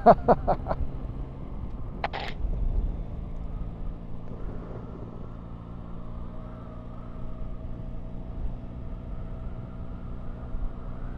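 Yamaha Tracer 9 GT's three-cylinder engine running steadily at cruising speed, with road and wind noise. A short burst of hiss about two seconds in.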